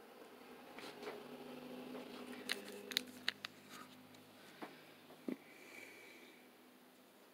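Quiet room tone with a faint low steady hum and a few light scattered clicks and taps.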